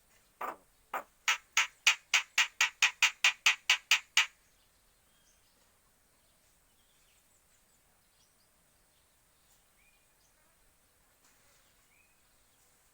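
A jalak (starling) giving an angry scolding call: a run of about fifteen short harsh notes that come faster and louder over about four seconds, then stop. Faint small chirps follow.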